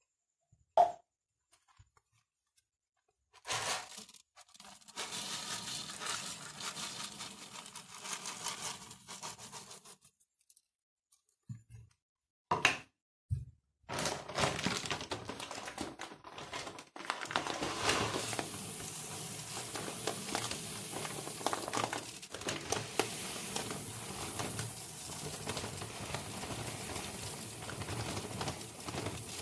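Platinum black aquarium soil granules being poured into a glass tank, a grainy, crackly rattle. It comes in spurts: a sharp knock about a second in, a pour from about 3 to 10 seconds in, a few knocks, then steady pouring from about 14 seconds on.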